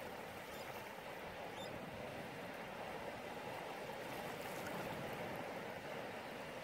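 Small waves breaking and washing in over a shallow beach: a steady, even rush of surf.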